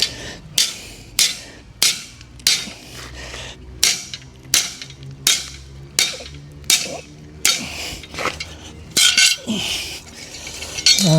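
Repeated sharp knocks, about one and a half a second, as a slasher blade's metal socket is struck to work it back off its wooden handle. The blade is stuck and not coming loose.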